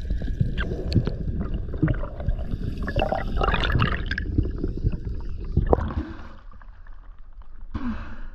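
Water sloshing and gurgling around an underwater camera as a freediver swims up, with scattered clicks and knocks. It quietens about six seconds in, once the camera is at the surface, and a short burst of sound comes near the end.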